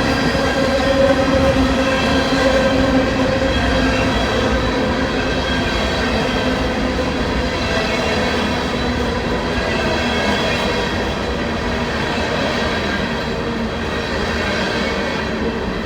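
Freight train's cars rolling past close by: a steady rumble with several steady high ringing tones over it, easing slightly toward the end.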